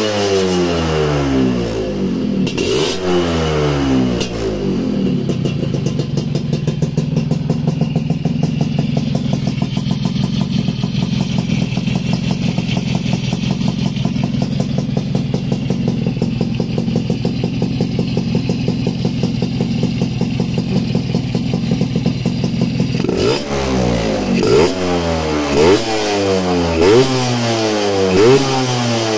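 Yamaha Alfa's two-stroke single-cylinder engine, fitted with an aftermarket silencer, coming down from revs in the first few seconds and then idling steadily. Near the end it is blipped about six times in quick succession, each rev rising and falling back fast.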